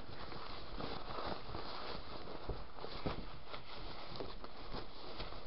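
Cloth rustling and rubbing as hands handle and turn a lined fabric bag, with scattered soft brushes and taps.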